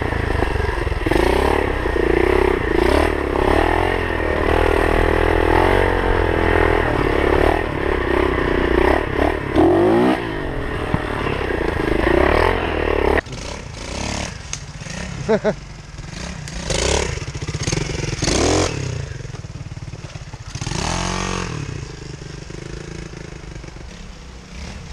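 Pit bike's small single-cylinder four-stroke engine heard close up from the rider's own bike, its pitch rising and falling as the throttle is worked on a dirt trail, with rattles from the bike. About 13 seconds in the sound cuts abruptly to a quieter pit bike engine heard from farther off, revving up and down in swells.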